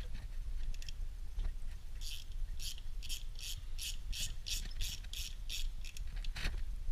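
A 3/8-inch drive ratchet with a 9/16 socket clicking in quick, even back-swings, about four or five a second starting about two seconds in, as it spins out the bolts on top of a pump head.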